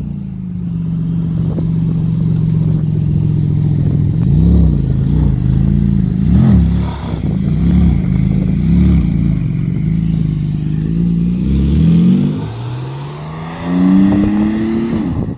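Porsche 911 GT2 RS twin-turbo flat-six running at low revs, with a run of short throttle blips around the middle. It then pulls away in two rising surges of revs near the end.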